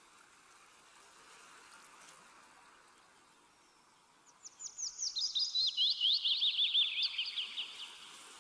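A small songbird singing: a fast run of many short, sharp downslurred notes that starts about four seconds in and drops in pitch toward its end, over faint outdoor background noise.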